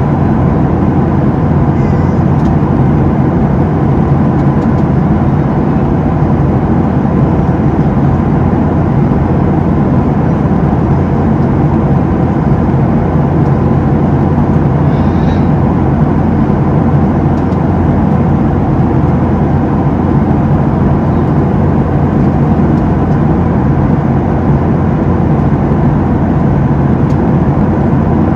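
Steady engine drone and rushing air inside the cabin of a Boeing 737-700 in flight, its CFM56-7B turbofans running with a constant hum of steady tones under the noise.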